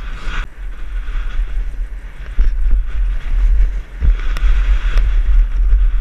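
Heavy wind buffeting on a helmet-mounted camera's microphone while riding fast over a dirt track, with a few sharp knocks from the bike hitting bumps.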